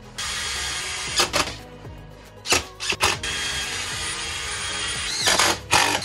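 Cordless drill-driver driving screws into a board: spells of steady running broken by several short, louder bursts.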